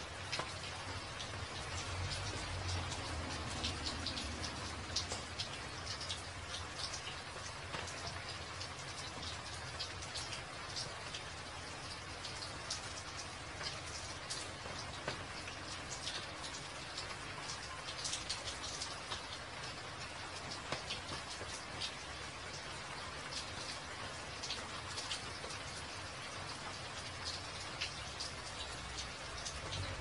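Steady rain falling: an even hiss with many separate close drops splashing throughout.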